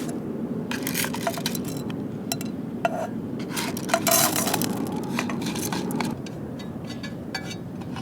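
Aluminium camp cookware being handled, with scattered clinks and scrapes of metal on metal and a couple of short metallic rings near the middle, over a steady low rumble.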